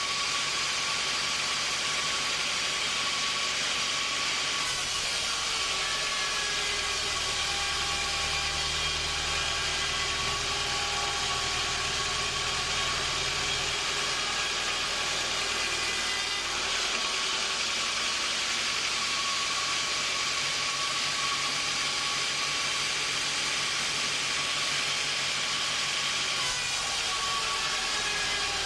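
Sawmill machinery running steadily with a strong hiss and a few steady tones. A low hum strengthens about five seconds in, drops away around seventeen seconds, and returns near the end.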